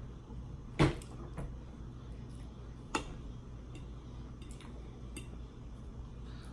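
Metal fork clicking against a dinner plate while eating: a sharp click just under a second in, another about two seconds later, and a few fainter ticks between bites.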